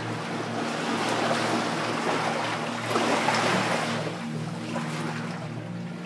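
Sea waves washing in: a surge of water that builds to its loudest about three seconds in and then eases off. A steady low hum runs underneath.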